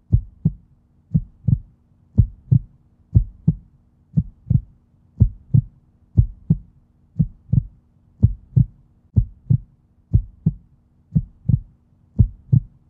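Heartbeat sound effect: a double low thump, lub-dub, repeating about once a second, over a faint steady low hum.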